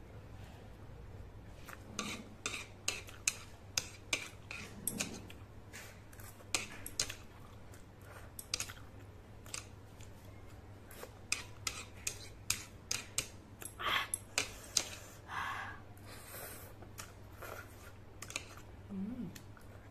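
Metal chopsticks clicking and scraping against a plate in many quick sharp taps as leftover noodle bits are picked up, with chewing between them.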